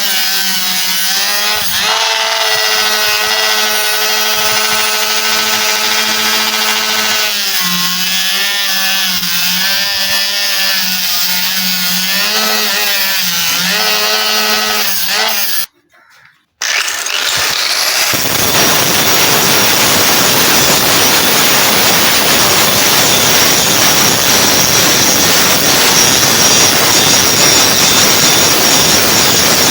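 Electric power tool working the steel of a rusty knife: first a steady motor whine that wavers as it bears on the metal. After a brief drop to silence about halfway, a harsher, even hiss of abrasive grinding follows.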